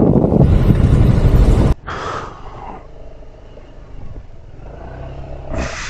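Honda Forza scooter riding a dirt track: loud wind and riding noise on the microphone cuts off abruptly under two seconds in. After that the scooter's engine runs low and quiet.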